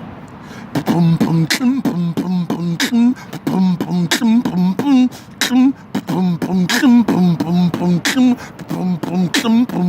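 Beatboxing: rhythmic vocal percussion of sharp mouth clicks and snares over a pitched, wavering hummed bass line, starting about a second in.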